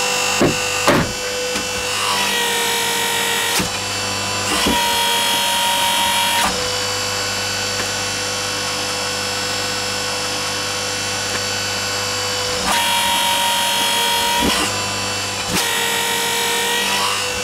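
Hydraulic press running: the steady whine of its pump motor, its tone shifting several times as the ram presses down on and crushes a rubber ball, with two sharp clicks near the start.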